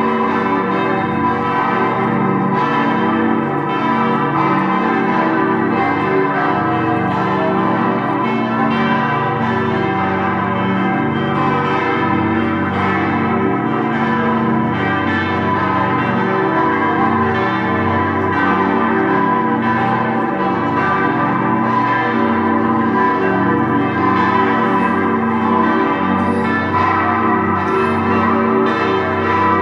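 Full peal of six large Grassmayr-cast church bells, tuned G, A, B, D, E and G and weighing from 608 kg up to about 5.8 tonnes, all ringing together continuously, their strokes overlapping in a steady wash of tones.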